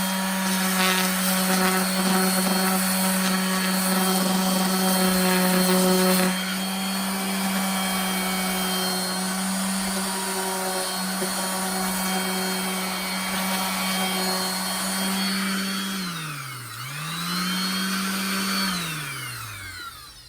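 Electric power sander running at a steady high speed while sanding car bodywork. About sixteen seconds in its pitch dips and climbs back up. Near the end it is switched off and winds down.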